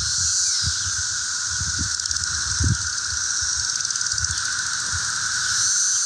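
Mass chorus of 17-year periodical cicadas singing: a loud, steady, unbroken drone with a high hiss above it, and a few soft low bumps underneath.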